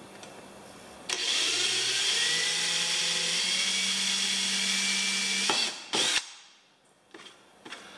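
Power drill boring a small pilot hole through a plastic kayak deck. The motor speeds up in two steps and stops, then gives one short burst.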